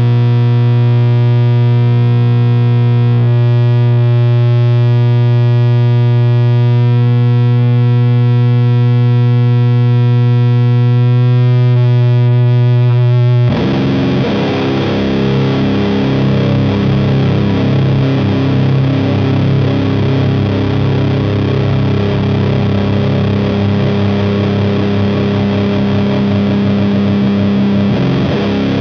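Electric guitar through a high-gain fuzz/distortion pedal, the Audio Surplus Effects Burden, playing a loud drone: one distorted chord held with long sustain for about thirteen seconds, then a new chord struck that rings on denser and grittier.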